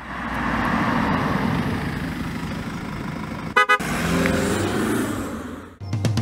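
Logo sound effect of a vehicle driving up, its engine running, with a quick double horn toot about three and a half seconds in; the engine then fades out just before a drum beat comes in at the very end.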